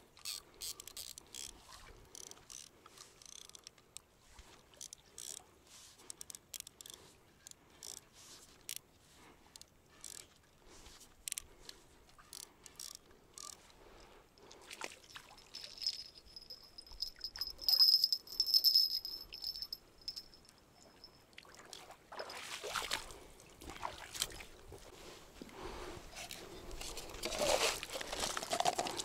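Small clicks and handling noises of fishing tackle, then a high, even trill for several seconds in the middle. Near the end come louder wet scraping and sloshing as bait and gear are handled at the water's edge.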